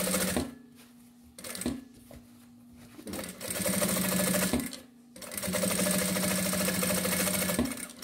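Sewing machine stitching a seam in synthetic leather in stop-start runs: a brief burst at the start, a short blip, then about a second and a half of stitching, a pause, and a longer run of about two and a half seconds. A faint low motor hum fills the pauses.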